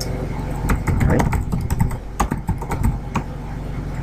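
Typing on a computer keyboard: a quick run of key clicks lasting about two and a half seconds, as a short terminal command is entered.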